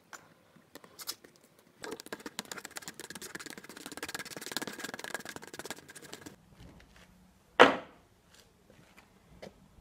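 A rod stirring two-part polyurethane in a thin plastic cup: rapid scraping and clicking against the cup for about four seconds. A single sharp knock follows, the loudest sound, near the end.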